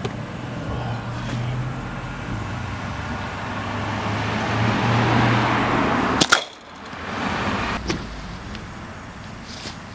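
A car passing on the street, its noise building and then fading, followed about six seconds in by one sharp smack of a pitched baseball into the catcher's mitt.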